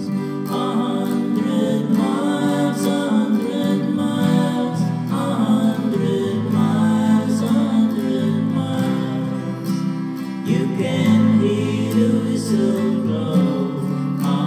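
Background music led by guitar, playing steadily.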